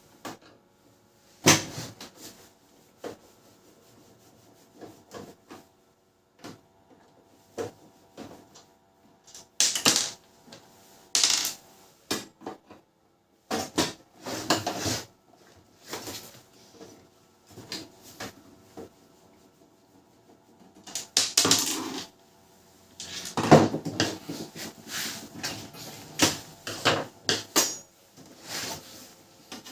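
Irregular clicks, knocks and scrapes of a laser printer's plastic casing being handled as its side cover is opened, in short separate bursts with quiet gaps between them.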